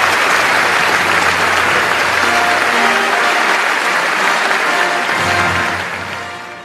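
Audience applauding, with music coming in about two seconds in; both fade out near the end.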